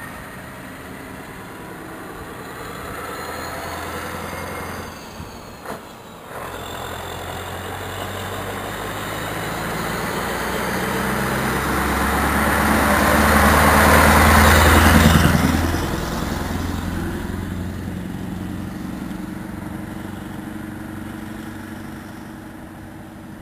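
Scania 143 450's V8 diesel with an open side exhaust pipe, driving up and past: its engine note grows louder to a peak about fifteen seconds in, then drops in pitch and fades as the truck goes away.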